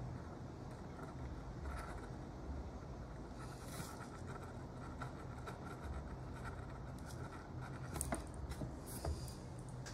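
Faint handling of a Suunto Ocean dive watch with a few sharp clicks about eight to nine seconds in, from fingers pressing its side buttons while scrolling its setup menus, over a steady low background hum.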